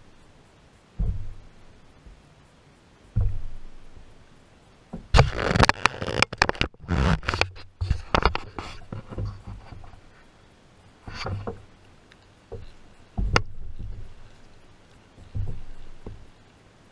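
Dull knocks and scrapes on a kayak hull as gear is shifted around aboard, with a busy run of clicks and rattles about five to nine seconds in.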